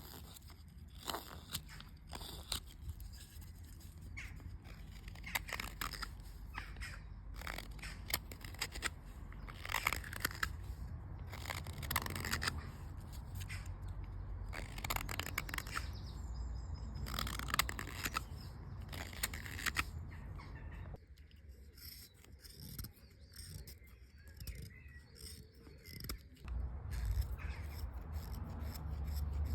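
Hand carving of a wooden spoon: a blade shaving and slicing wood in irregular short strokes, some coming in quick runs. The strokes thin out and grow quieter for a few seconds past the two-thirds mark, then pick up again.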